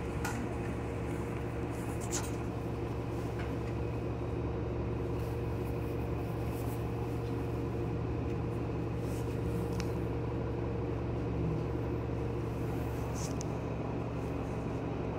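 Steady drone inside a city transit bus, its engine and ventilation humming, with a few faint clicks and rattles.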